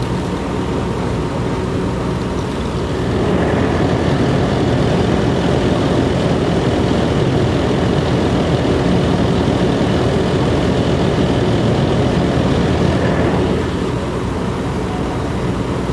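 Fire engine's diesel engine running steadily while pumping water into charged hoses, growing louder about three seconds in and easing back near the end.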